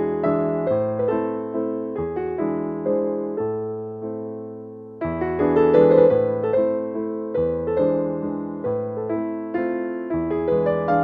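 Background piano music: a melody of struck, fading notes over held bass notes. It eases off about four seconds in, then a louder phrase begins a second later.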